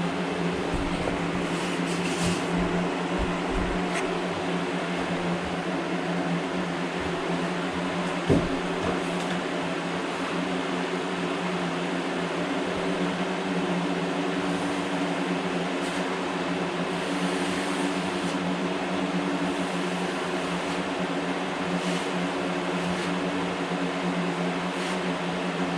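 A steady mechanical hum from a running motor, with a few low knocks in the first few seconds and one sharper knock about eight seconds in.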